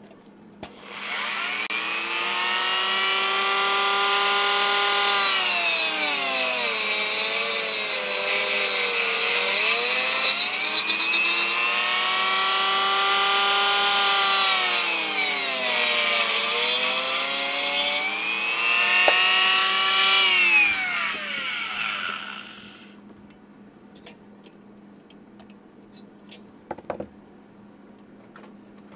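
A small rotary tool with a cutting wheel spins up to a high-pitched whine and is pushed into thin stamped lantern metal twice. Each time its pitch sags under load and a harsh grinding hiss rises over it. It then winds down and stops after about twenty seconds.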